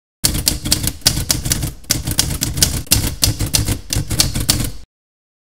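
Typewriter keys striking in a quick, uneven run of clicks with a short pause about two seconds in, stopping abruptly near the end.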